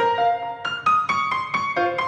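Background piano music: a brisk melody of single struck notes, about four or five a second.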